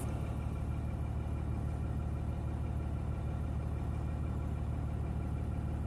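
Steady low mechanical hum, like a motor or appliance running, with no change in pitch or level.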